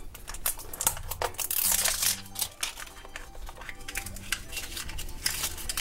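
Thin plastic blind-pack wrapper being peeled and crinkled off a small plastic toy case, an irregular run of crackles and sharp little clicks.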